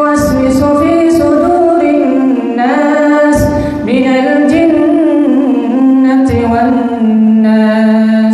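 A man chanting Qur'an recitation solo in a melodic style, drawing out long held notes, amplified through a microphone.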